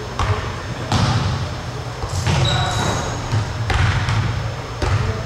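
Basketballs bouncing on a hardwood gym floor, about five irregular thumps that echo through the hall, with a brief high squeak about halfway through.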